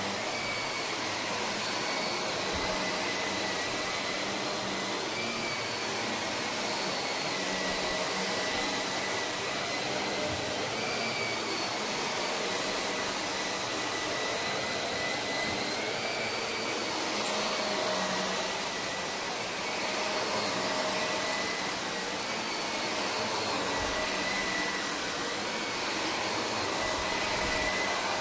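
Shark upright vacuum cleaner running steadily on carpet: a constant rushing of air with a high whine that wavers slightly in pitch as it is pushed back and forth.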